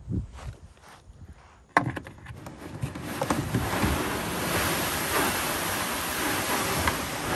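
Plastic kayak hull dragged over sand: a sharp jolt about two seconds in as it starts to move, then a steady scraping hiss as it slides along.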